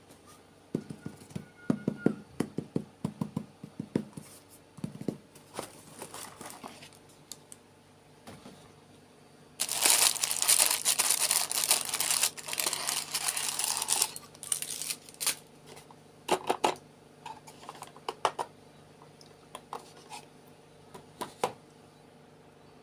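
Plastic packaging handled during an unboxing: scattered clicks and taps, then about four seconds of loud crinkling and tearing near the middle, followed by more light clicks.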